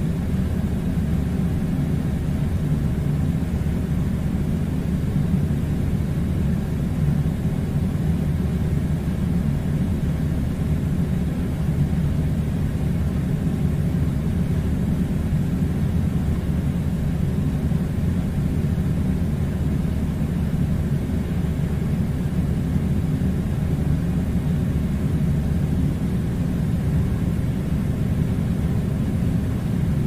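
A steady low rumbling drone with a light hiss above it, even in level and without breaks.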